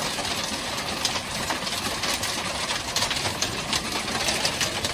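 Hail pelting a boat's deck and cabin roof in a heavy hailstorm: a dense, steady clatter of countless small ice impacts.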